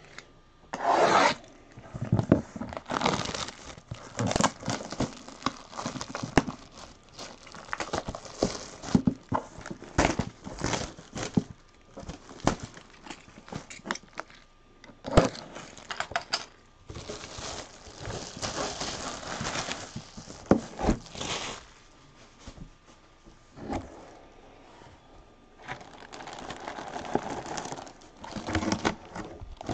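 Packaging being torn open and handled by hand: irregular tearing, crinkling and scraping, with a few sharp knocks. It is busiest in two longer stretches in the second half.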